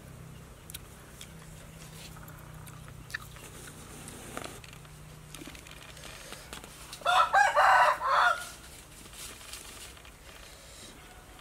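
A rooster crowing once, about seven seconds in: a single loud call of about a second and a half, over faint background noise and a few small clicks.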